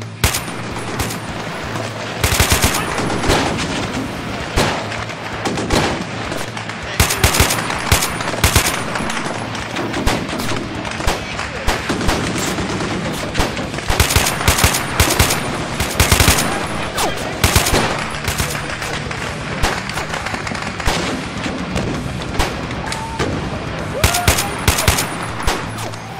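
Bursts of automatic rifle fire mixed with single shots from several guns: a sustained exchange of fire, with the heaviest volleys coming in waves.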